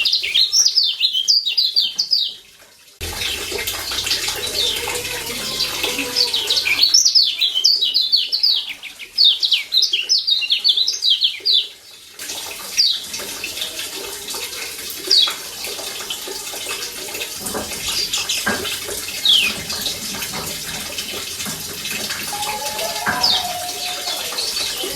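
Lemon-bellied white-eye (kecial kuning) giving fast runs of high chirping 'ciak' calls, each note sliding down in pitch. The calls come in two dense bursts in the first half, then only as scattered single chirps.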